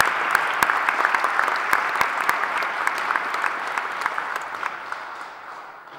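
Audience applauding, many hands clapping together; the applause slowly dies away near the end.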